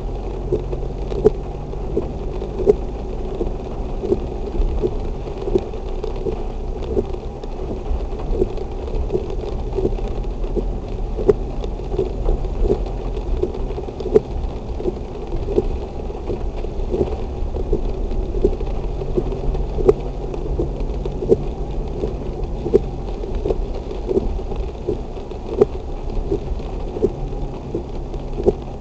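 Heavy rain in a thunderstorm: a steady downpour with frequent, irregular taps of drops striking a nearby surface, over a continuous low rumble.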